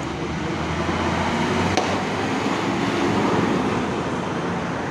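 A tour bus and road traffic passing: a steady engine and tyre rumble that grows a little louder past the middle and then eases, with one brief click about two seconds in.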